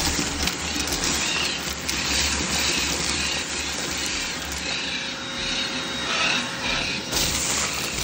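Vacuum cleaner running steadily, its hose nozzle sucking up spilled parrot food pellets and seed debris from carpet.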